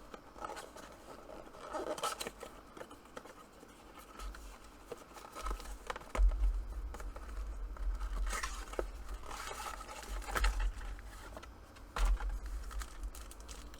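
Cardboard and plastic wrap being torn, scraped and crinkled by hand as a sealed trading-card blaster box is opened without a box cutter, with scattered clicks, plus low bumps of handling in the second half.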